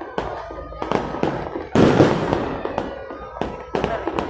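Fireworks going off in rapid, uneven bangs and crackles, the loudest burst just under two seconds in and trailing away after it.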